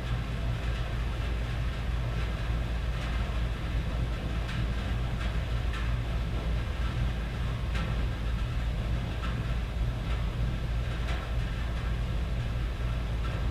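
Rain falling on a tin roof, with scattered sharper ticks of single drops over a steady low rumble of thunder.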